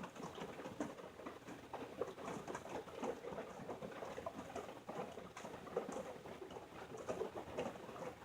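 Rain falling on a van's roof, heard from inside the van: a dense, irregular scatter of small taps.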